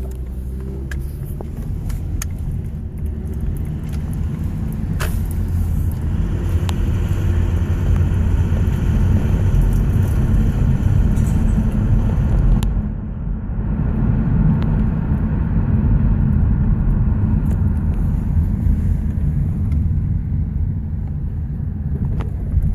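2006 Lexus ES 330 driving off at low speed, heard from inside: a steady low road-and-engine rumble that builds, with scattered light clicks in the first few seconds. These are the low speeds at which the owner reports a rattle. The sound dips briefly about thirteen seconds in.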